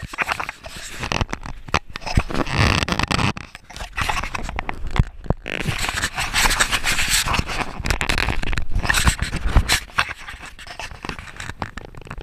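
Handling noise: a GoPro Hero 3 camera rubbing and scraping against a life jacket and clothing, with irregular rustles and knocks.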